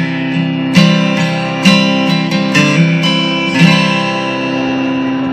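Acoustic guitar strumming chords: four strums about a second apart, the last chord left ringing as the song closes.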